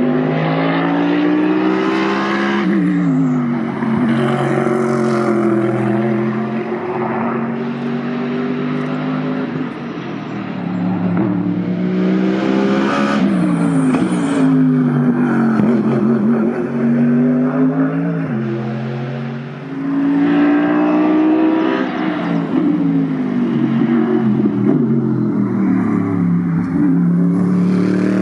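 Mercedes-AMG GT3 race cars' naturally aspirated V8 engines accelerating hard past the track. The engine note climbs in pitch again and again, with sudden drops at the gear changes.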